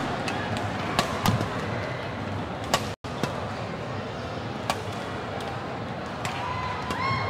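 Badminton rackets smacking a shuttlecock during a doubles rally: sharp hits at irregular intervals about a second apart over steady arena crowd noise. The sound drops out for an instant about three seconds in, and a held high call from the crowd starts near the end.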